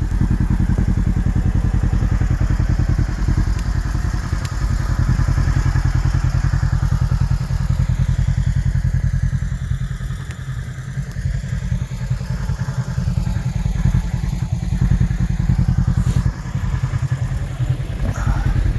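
Kawasaki KRX 1000 side-by-side's parallel-twin engine running under way, a deep steady pulsing drone that eases off about halfway through and then pulls again.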